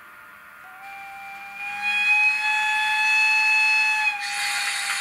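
Sound decoder of a Piko Class E 91 electric locomotive model playing the locomotive's whistle: one long, steady blast starting just under a second in and lasting about three and a half seconds, followed by a loud hiss from about four seconds in.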